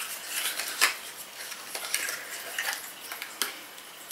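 A small cardboard cosmetics box opened by hand and a dropper bottle slid out of it: scattered rustling and light clicks, the sharpest a little under a second in and again past three seconds.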